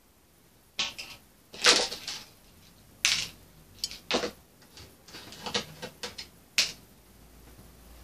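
Small tools and metal parts being handled on a wooden workbench: a string of about seven sharp, irregular clicks and clacks, the loudest about a second and a half in.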